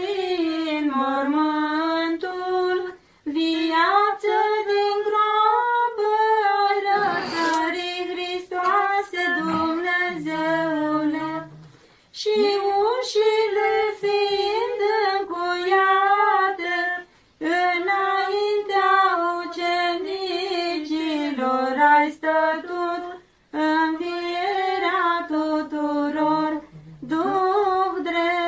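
Orthodox nuns singing an unaccompanied chant in women's voices, one melodic line sung phrase by phrase with short breaks for breath.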